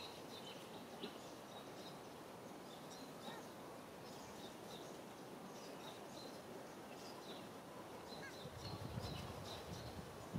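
Faint outdoor background: a steady hiss with short, faint high chirps repeating throughout. A low rumbling noise swells up about eight seconds in.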